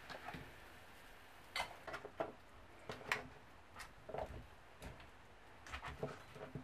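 Cubes of raw sweet potato dropped by hand into a saucepan of hot stock, giving about a dozen short, irregular plops and knocks against the pan, over a faint steady hiss.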